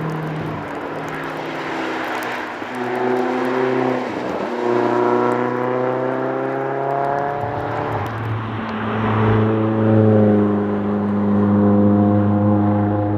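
Lotus Elise S engine pulling hard under acceleration. Its pitch climbs steadily and steps down at gear changes, about two and a half, four and a half and eight seconds in.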